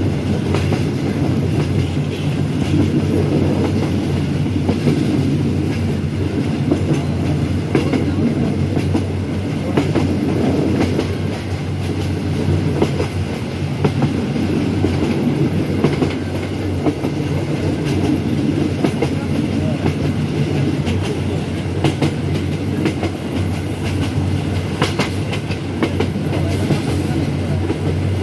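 Train in motion: the steady rumble of a railway carriage, with clicks of the wheels passing over rail joints at irregular intervals.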